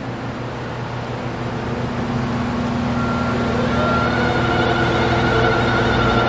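A steady machine hum, with background music fading in from about three seconds in.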